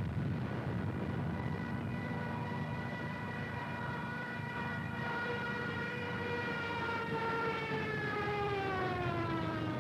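Stuka dive siren (the Ju 87's "Jericho trumpet") sounding as a steady high tone over a low aircraft rumble, its pitch sliding down over the last couple of seconds. It is a newsreel sound effect that marks the Stuka's dive attack.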